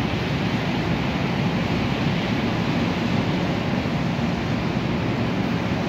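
MBTA Green Line Type 7 light-rail car rolling slowly in toward the platform: a steady rumble and rushing noise.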